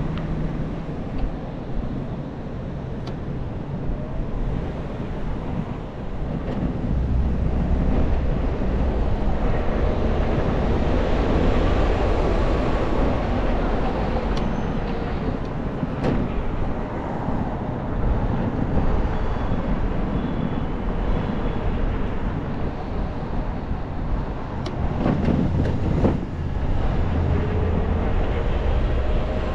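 Steady rumble of riding an electric scooter, with a few short clicks and knocks along the way.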